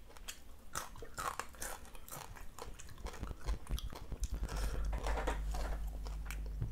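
Close-miked chewing of crispy deep-fried tilapia and rice: quick, irregular crunches and mouth clicks. A low steady hum joins in for the last two seconds.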